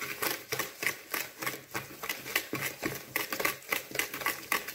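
Wire balloon whisk beating eggs and sugar in a mixing bowl: quick, even clicking as the wires strike the bowl several times a second, the mixture being whisked until the sugar dissolves and it turns lighter.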